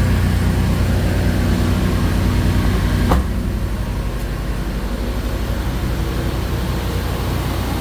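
Motorhome's onboard generator running together with the idling chassis engine: a steady, loud low drone. About three seconds in there is a single short click, after which the drone is slightly quieter.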